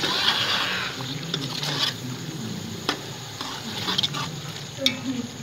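A metal spoon stirring beef mince in a metal pot, scraping and knocking against the side a few times, over the sizzle of the nearly dry keema frying.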